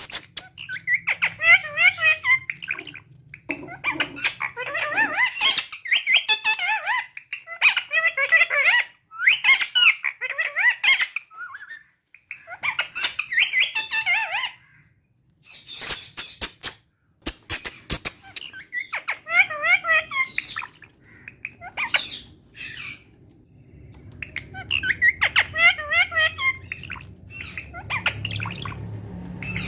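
Green Indian ringneck parakeet chattering and squawking in repeated bursts of rapid, warbling high notes, each a second or two long, with a few sharp clicks past the middle.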